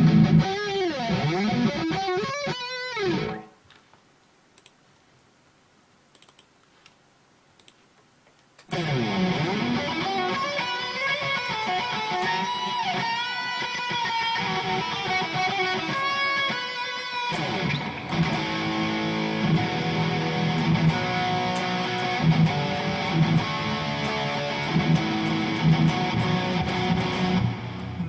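Harley Benton SC-500 electric guitar played through the Overloud TH3 amp simulator, with notes bending in pitch. The playing stops about three seconds in, resumes about nine seconds in, and runs on with a brief break near the seventeen-second mark.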